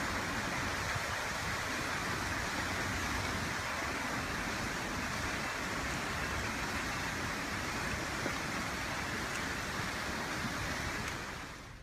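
Fast-moving flash-flood water rushing steadily, a dense even noise of torrent water, fading out near the end.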